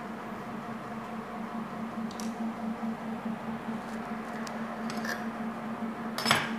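Steady low hum in the room with a few light metal clicks as a screwdriver and a sewing machine's removed needle plate are handled, and one sharper clack near the end.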